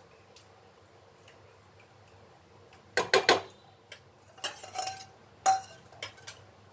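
A steel spoon clinking against metal cookware in a few short clattery bursts, starting about three seconds in; one clink rings briefly.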